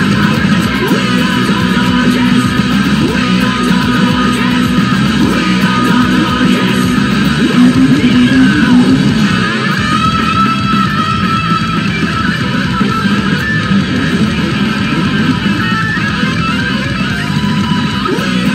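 Les Paul-style electric guitar picked and strummed hard, playing a fast punk-rock guitar part along with the song's band recording.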